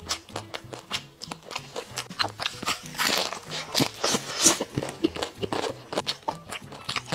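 Close-up crunching and chewing of a crisp jianbing guozi (Chinese pancake wrap), a quick run of crisp cracks with each bite and chew, densest and loudest around the middle.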